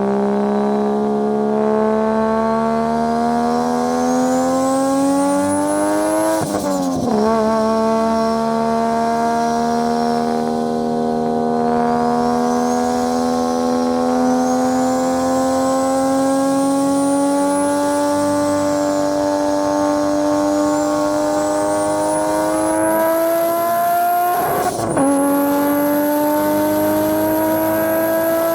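Turbocharged racing car engine pulling hard through long gears, its note climbing steadily, with a high turbo whistle rising and falling above it. The engine note drops sharply at two upshifts, about six seconds in and again near the end.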